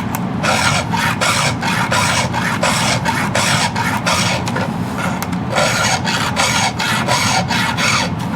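Hand file rasping across a chainsaw chain's cutters in quick, even strokes, about two or three a second, over a steady low hum.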